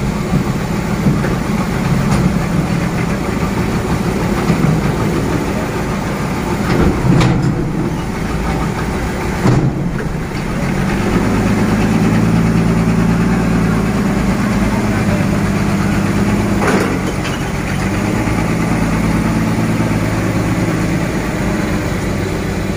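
Engines of a forklift and a container truck running steadily, with a few short knocks. About ten seconds in, a deeper, fuller engine note builds up.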